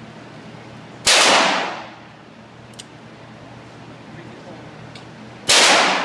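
Two gunshots about four and a half seconds apart, each a sharp crack with a short echoing tail.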